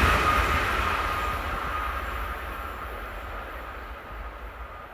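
ÖBB Railjet passenger train receding along the line. Its rolling noise fades steadily, and a high whine from the train dies away within the first second or two.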